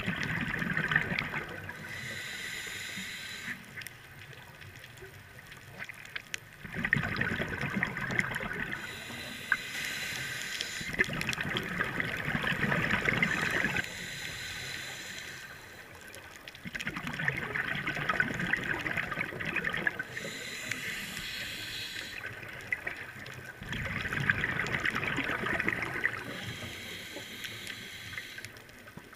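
Scuba diver breathing through a regulator underwater: about five slow breaths, a hiss of inhaled air alternating with a long bubbling rush of exhaled air.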